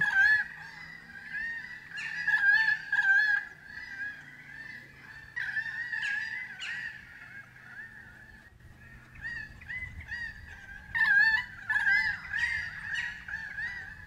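Chorus of animal calls: many short, arching calls repeated over and over, with louder clusters of calls at a few points.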